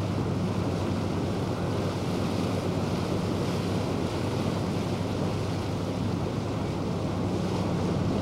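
Boat under way: a steady low engine hum beneath wind buffeting the microphone and the wash of water.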